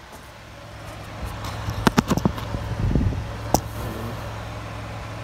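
Mazda Miata's right-side electric radiator fan, wired straight to a 12-volt battery, running with a steady low hum. Several sharp clicks come about two seconds in and another a little later as the wire leads touch the battery terminals.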